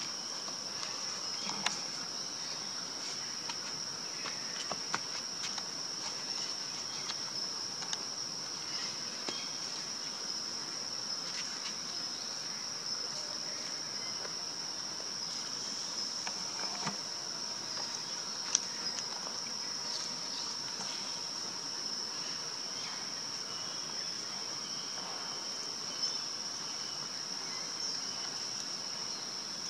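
Continuous high-pitched insect chorus holding one steady pitch, with a few faint clicks over it, the sharpest a little past the middle.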